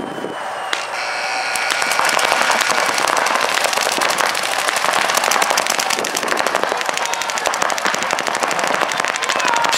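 Many paintball markers firing in rapid streams of shots, a dense crackle that builds about one and a half seconds in and keeps going.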